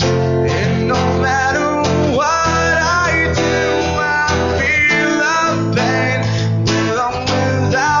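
Two acoustic guitars played together, strummed and picked, with a man singing.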